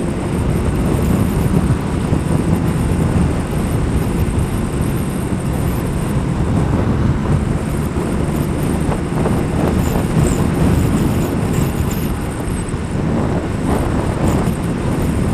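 Motorcycle riding at road speed: steady wind rush over the microphone mixed with a continuous engine drone.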